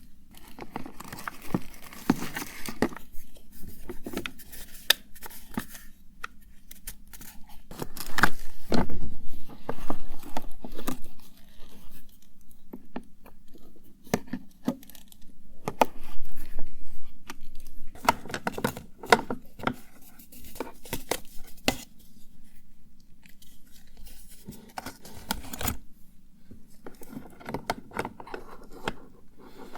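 Close-up handling of cosmetics and their packaging: a run of small clicks, taps and scrapes with some crinkling, louder in a few clusters.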